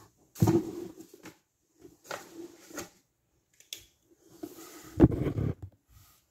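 A few short bursts of rustling and bumping close to the microphone, the loudest a sharp knock about five seconds in, as the recording camera is handled.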